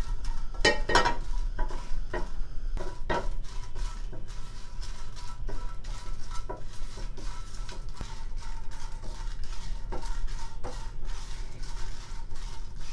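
Dried red chillies being stirred and dry-roasted in a dry non-stick frying pan with a silicone spatula: the pods rattle and tap against the pan in a run of light clicks, with a few louder knocks in the first three seconds, over a steady low hum.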